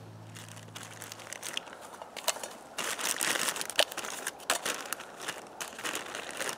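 Crinkling and rustling of a plastic food packet being handled and opened by hand, with sharp crackles. It grows louder about three seconds in.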